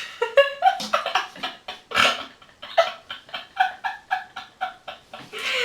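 A woman's voice making a rapid run of short, pitched, chicken-like vocal bursts, about four a second, for roughly five seconds.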